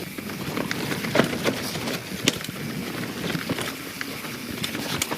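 YT Jeffsy 27 mountain bike riding over a rough, rooty trail: tyre noise on dirt, with irregular sharp knocks and rattles from the bike as it hits roots and steps.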